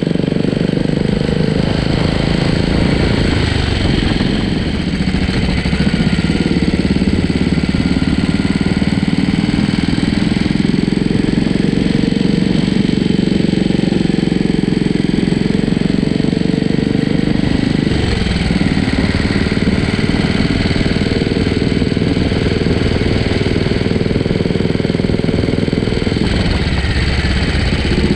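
Royal Enfield Classic 500 single-cylinder engine, bored out with a 535cc kit and breathing through an aftermarket Hitchcocks exhaust, running at low road speed. The engine note is steady and loud, and eases off and picks up again a few times.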